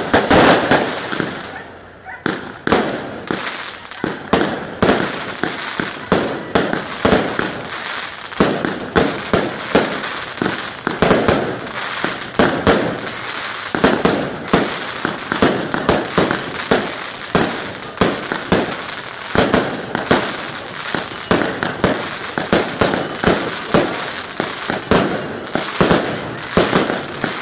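Aerial firework shells bursting in a rapid, continuous barrage, several sharp bangs a second with no let-up. The loudest burst comes right at the start.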